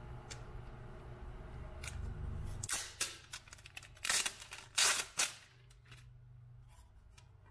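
Protective plastic film being peeled off a Cry Baby wah pedal's metal treadle plate, crackling in several short bursts about three to five seconds in.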